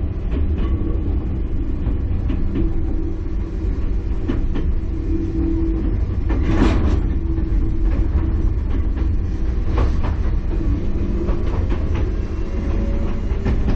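Enoden electric train running on the rails, heard from inside the carriage: a steady rumble with wheel clicks and knocks. A brief screech comes about six and a half seconds in, and a whine rises in pitch near the end.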